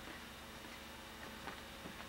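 Faint, irregular ticks and creaks from a mini trampoline's springs and mat as a child bounces on it, over steady camcorder hiss and hum.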